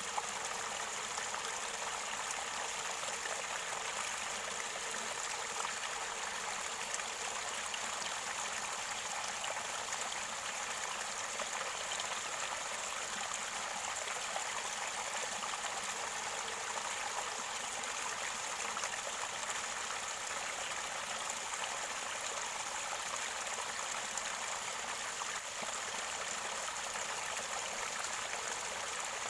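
Mountain stream near its spring source, water gurgling and rushing steadily over stones.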